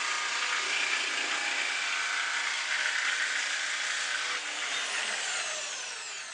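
Bosch jigsaw sawing through thick aluminium, a steady high, rasping machine noise. About five seconds in, the motor winds down and its pitch falls as the cut ends.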